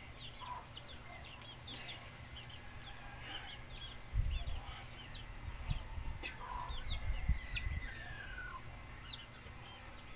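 Chickens and small birds calling: many short high chirps throughout, and a faint drawn-out rooster crow from about six to eight seconds in. A low rumble runs underneath from about four seconds in and is the loudest sound.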